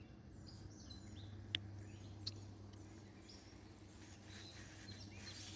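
Faint birds chirping and calling over a steady low hum, with two short sharp clicks about a second and a half and two seconds in.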